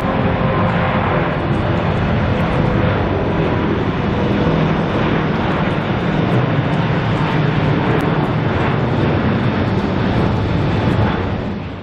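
Airbus A380-842's four Rolls-Royce Trent 970 turbofans at takeoff thrust during rotation and climb-out: steady, loud jet noise that fades out at the very end.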